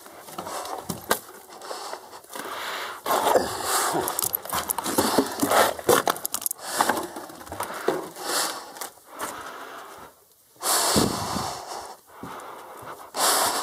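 A person breathing hard while clothing and gear rustle and scrape in irregular bursts, with a light jangle of keys or metal bits.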